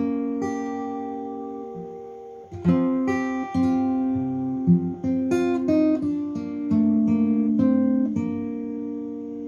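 Acoustic guitar music: slow plucked notes and chords, each left to ring out and fade.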